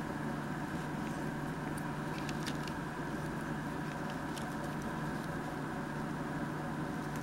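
Steady background hum with no change, and over it a few faint light ticks and rustles as a hand smooths a sheet of paper.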